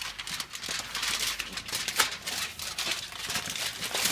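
Aluminum foil crinkling and crackling as it is folded and pressed around a ham, with a sharper crackle about halfway through.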